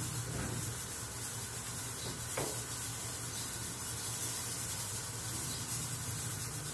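Steady low hum and hiss of background noise, with two faint light knocks about half a second and two and a half seconds in from hands handling the LED tail-light bar against the sidecar's metal body.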